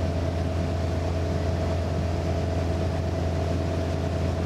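Motorboat engine running steadily, a low even drone with a constant higher tone over it, heard from on board.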